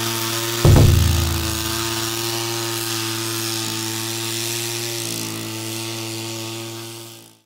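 Small petrol engine of a walk-behind rice-paddy weeder running at a steady speed, with a heavy thump about a second in; the sound fades out near the end.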